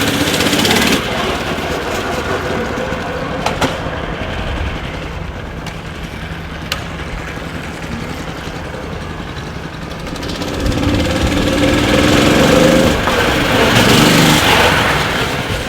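Mini bike's Predator 212 single-cylinder engine running, its sound swelling louder from about ten seconds in for a few seconds, then easing back.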